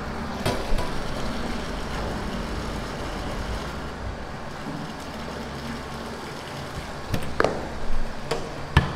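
Steady mechanical hum and rush from the dairy's stainless-steel bulk milk cooling tank and its equipment as milk is pumped in. A few sharp metal clanks come near the end as the tank's lid hatch is handled and shut.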